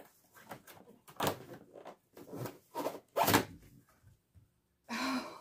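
Box packaging being handled as a large panel is lifted and moved: a series of short scrapes and rustles, about five of them, the loudest a little past three seconds in.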